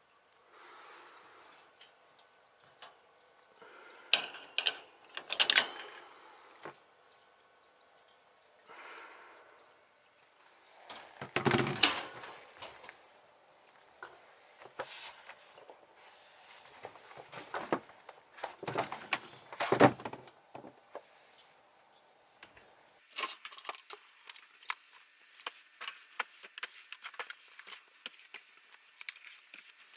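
Close rustling and scraping of clothing and fur as a cat clings to and is petted by a person, with a few louder knocks and scrapes and, in the last part, a run of many small quick clicks and scratches.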